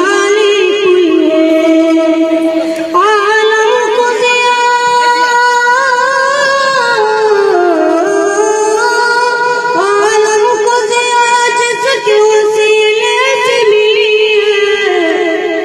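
A song with a singing voice holding long, wavering notes that slide from pitch to pitch.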